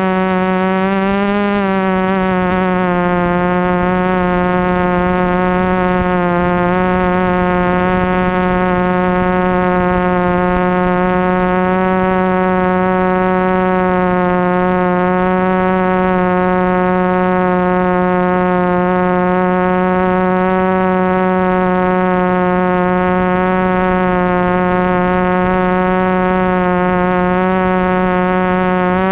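Electric motors and propellers of a small camera drone, heard from the GoPro riding on it: a steady buzz held at one pitch, rising briefly about a second and a half in.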